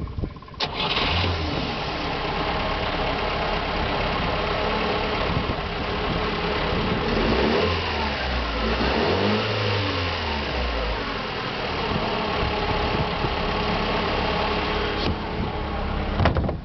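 Sailboat's inboard gasoline engine running steadily. It comes in sharply about half a second in, is revved up and back down once about halfway through, and cuts off at the very end.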